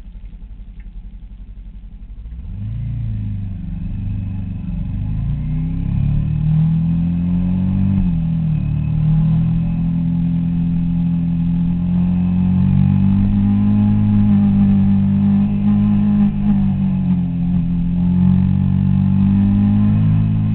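Suzuki SV650's V-twin engine pulling along the road, getting louder a couple of seconds in, its pitch rising and falling as it accelerates and shifts, then holding steadier at cruise.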